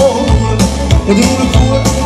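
Romanian lăutărească party music played live on synthesizer keyboards: a steady bass-and-drum beat under a wavering, ornamented melody line.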